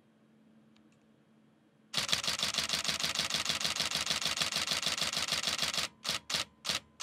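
Nikon D750 DSLR shooting a continuous burst: its shutter and mirror clatter rapidly from about two seconds in, then near the end slow to separate shots about three a second as the camera's buffer fills and it waits on the memory card.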